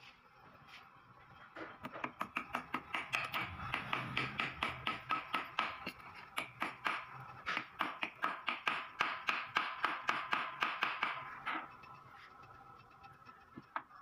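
A small ball-peen hammer tapping a 6001 ball bearing into the bore of a KLX150 suspension linkage, in a quick run of metal-on-metal taps about four a second. The taps start about a second and a half in, pause briefly about halfway, and stop near the end.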